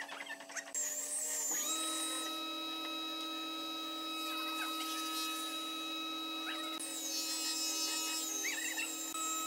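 A few light knocks, then a spindle moulder with a stock power feeder starts about a second and a half in and runs with a steady hum and a high whine while a thin wooden panel is fed along the fence.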